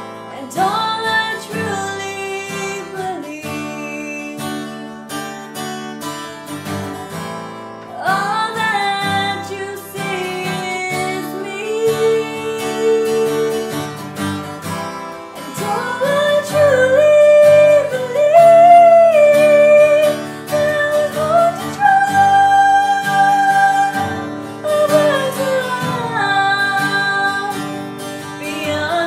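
A woman singing over acoustic guitar accompaniment, with several long held notes.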